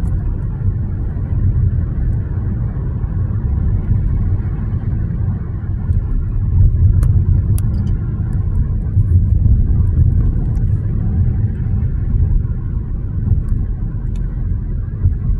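Steady low rumble of a moving car's tyres and engine, heard from inside the cabin while cruising at road speed.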